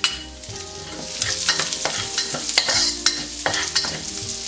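Minced garlic frying in hot oil in a stainless steel wok while a metal spatula stirs and scrapes it around the pan. The sizzle swells about a second in, with repeated scraping strokes.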